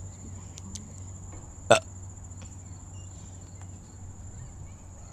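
A single sharp knock about a second and a half in, over a steady high-pitched whine and a low hum.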